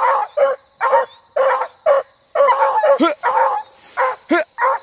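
Hunting dog yelping and barking in quick succession, about two calls a second, a couple of them trailing off into a falling whine. It is the excited crying of an armadillo dog straining to get at its quarry.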